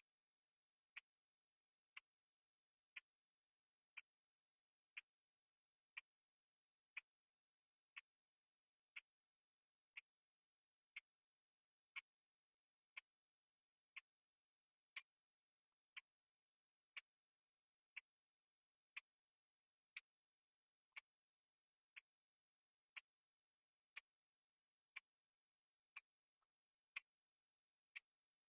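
Countdown clock ticking steadily once a second, each tick short and sharp, with silence between.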